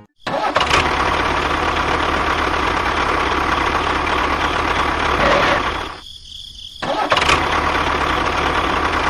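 A small motor running steadily, dropping out for under a second about six seconds in, then starting up again.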